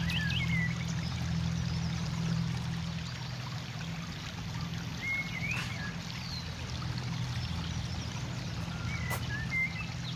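Water washing and trickling over a steady low hum, with a bird giving a short chirp twice, about five seconds in and again near the end.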